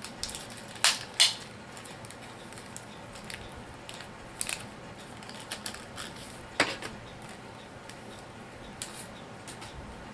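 Light clicks and rattles of plastic miniatures and booster packaging being handled, with a quick pair of sharp clicks about a second in, a few lighter ones midway, and another sharp click past six seconds.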